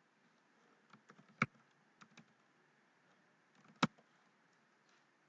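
Computer keyboard keys being typed, a few scattered keystrokes with two sharper, louder clicks, about a second and a half in and near four seconds in.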